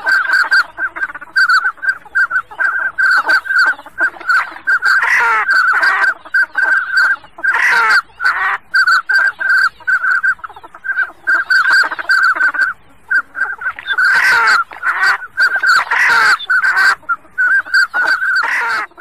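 A 3D-printed pintail duck whistle call being blown in a quick run of short, high whistle notes at one pitch, with several louder warbling trills mixed in.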